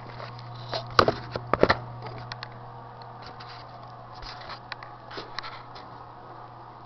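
Handling noise: a cluster of sharp knocks and clicks about a second in, then scattered fainter clicks, over a steady low hum.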